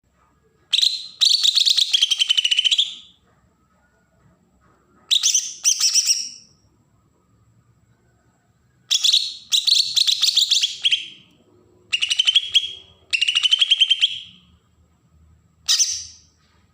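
Cucak ijo (green leafbird) singing its fast besetan song: five phrases of very rapid, high chattering notes, each a second or two long, with short pauses between.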